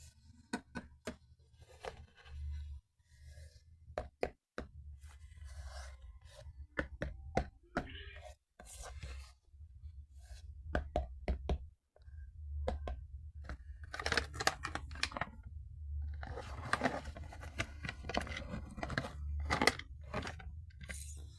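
Toy packaging being torn open and handled: tearing, crinkling and scraping with many small sharp clicks, busiest in the second half.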